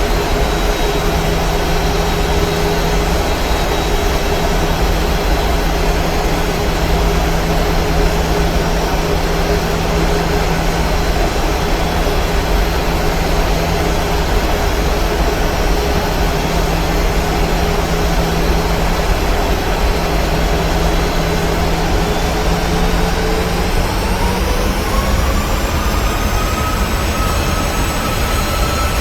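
Boeing 737-900's CFM56 jet engines and airflow heard as a steady roar inside the cabin on approach. A whine rises in pitch about 23 seconds in, as the engines spool up.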